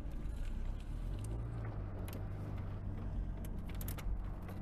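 Engine of a small supercharged manual car running at low speed, heard from inside the cabin as it creeps across a lot to park, with a few brief clicks near the end.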